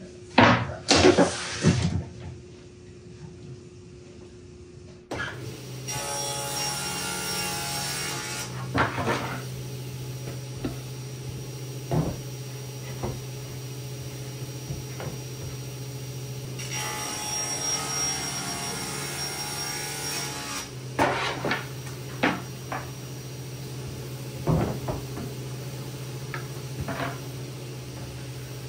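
Scattered wooden knocks and clunks of plywood boards and cabinet parts being handled, loudest in a quick cluster in the first two seconds. A steady low hum starts suddenly about five seconds in.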